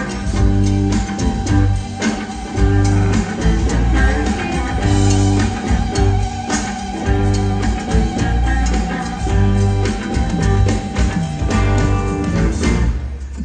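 Live rock band playing loudly: electric guitar over a pulsing bass and drums. A long held note wavers through the middle, and the band briefly drops out near the end.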